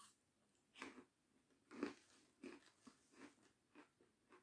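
Crunchy meringue being bitten and chewed close to the microphone: a string of short crunches, the loudest about two seconds in.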